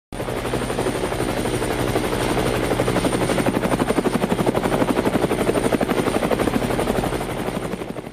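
A loud, steady mechanical drone with a fast, even pulsing beat, starting abruptly and easing off slightly near the end.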